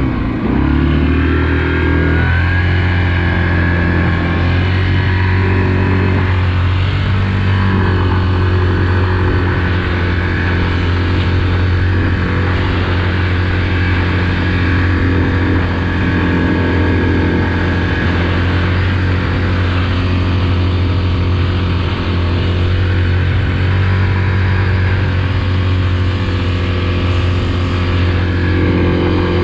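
Yamaha Grizzly 700 ATV's single-cylinder four-stroke engine under throttle, picking up speed in the first couple of seconds and then holding a steady pitch at cruising speed.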